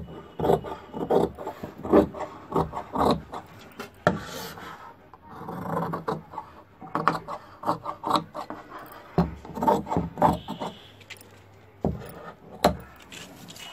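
Large tailor's scissors cutting printed dress fabric on a wooden table: an irregular run of snips and rasping scrapes, with the cloth rubbed and shifted in between.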